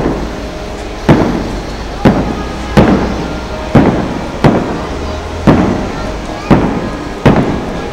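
Aerial fireworks shells bursting, nine sharp bangs about a second apart, each trailing off in an echoing rumble.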